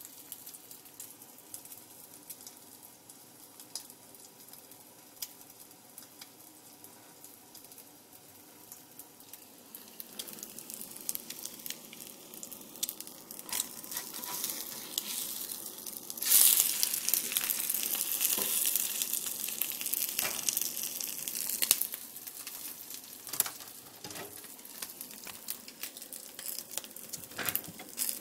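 An egg frying in hot oil in a pan, a crackling sizzle with sharp pops of spitting fat. It is faint at first, grows about ten seconds in, turns suddenly loud about sixteen seconds in for several seconds, then eases back to a softer sizzle.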